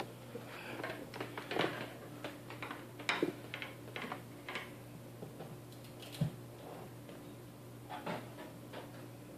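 Scattered light clicks and taps of Ethernet and power cables being handled and plugged in to power up a PoE access point, over a low steady hum.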